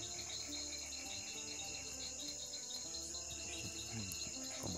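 Night insect chorus, crickets chirring steadily in a continuous high-pitched drone.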